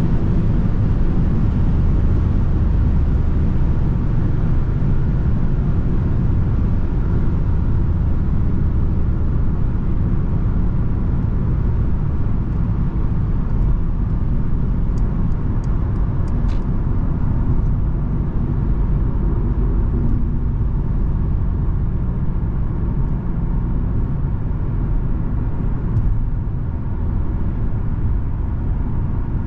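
Steady low rumble of a 2024 Mercedes-Benz C220d on the move, heard from inside the cabin: tyre, wind and engine noise from its four-cylinder diesel, with a few faint ticks about halfway through.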